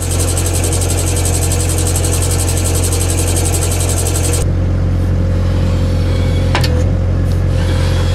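A compact loader's engine running steadily while its hydraulics turn the paddle of an empty concrete mixing bucket. A fast high rattle stops sharply about halfway through, and there are a couple of short knocks in the second half.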